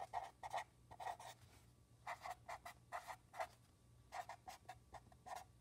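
Sharpie felt-tip marker writing on lined paper: many short strokes in quick clusters with brief pauses between words.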